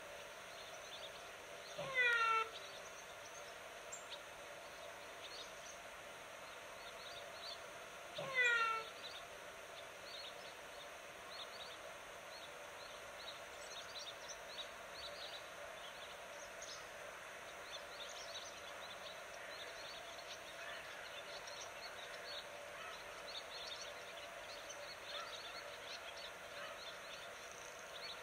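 A cat meows twice, about six seconds apart; each meow is a short call that falls in pitch. Small birds chirp faintly through the second half, over a steady outdoor background.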